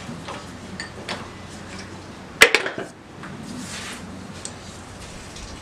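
A single sharp wooden knock about halfway through, with a couple of quick lighter clicks right after it and faint scattered taps around it: handling noise, not a running lathe.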